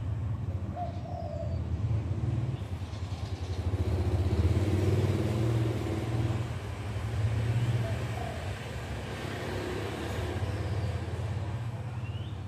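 Steady low rumble of road traffic that swells about four seconds in. A faint dove coo is heard about a second in and again near eight seconds, with small birds chirping faintly.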